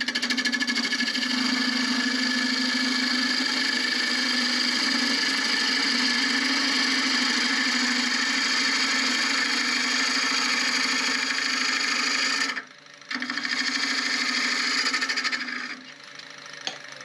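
Wood lathe spinning a blank while a turning tool cuts into the wood, a steady loud rasping over the lathe's hum. The cut breaks off briefly about twelve seconds in, resumes, and stops about a second before the end.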